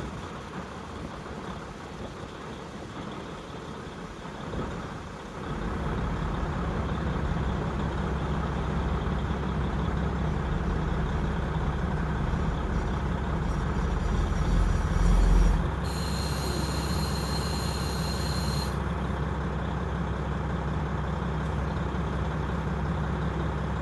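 KiHa 40 diesel railcar's engine running steadily, heard through an open window, becoming louder about five seconds in. Around two-thirds through comes a low thud, then about three seconds of hissing air with a high whistling tone.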